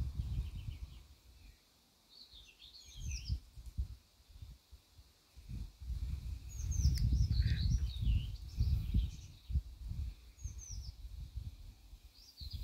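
Small birds chirping and singing in short high phrases several times, over gusts of wind buffeting the microphone, loudest around the middle.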